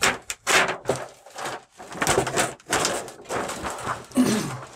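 Thin plastic reflector sheet from an LED TV backlight panel rustling and crinkling in irregular bursts as it is lifted off and handled by hand.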